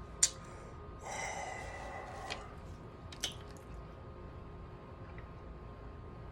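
A woman's long breathy exhale, like a sigh, lasting about a second and a half, framed by two short sharp mouth clicks, one just before it and one a little after.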